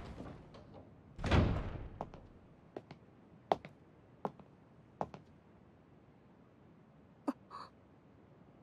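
A door opening with a dull thud about a second in, then footsteps walking in, about one step every three quarters of a second, and a last click near the end.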